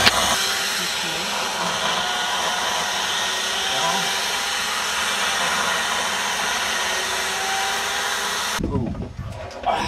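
Steady, loud whooshing mechanical noise, as from a power tool running at the wood-carving site, that cuts off sharply near the end.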